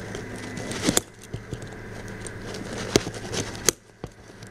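Hands picking at a stitched cloth mail bag and its wax seals: light rustling and crackling, with a few sharp clicks, about a second in, near three seconds and just after.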